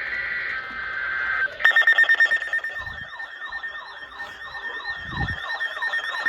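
Emergency alert tones for a tornado warning. A short burst of the warbling two-pitch data tone of the alert's header stops about a second and a half in. Loud, rapidly pulsing alarm beeps then start, with a wavering high tone and repeated falling sweeps sounding over them.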